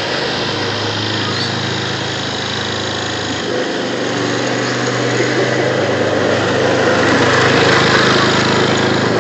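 Ride-on lawn tractor engine running steadily while towing sleds over snow, its note shifting slightly about three and a half seconds in.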